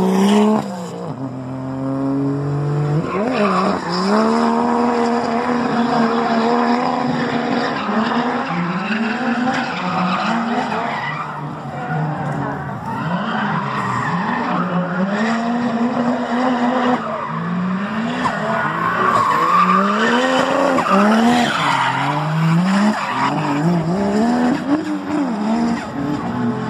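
BMW 3 Series drift car's engine revving up and down over and over, its pitch climbing and dropping every second or two, with tyres squealing as the car slides sideways.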